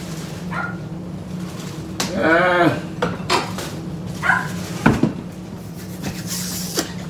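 A dog whining in one drawn-out cry that rises and falls in pitch about two seconds in, with a few short yips around it. A sharp clink of dishes about five seconds in, over a steady hum.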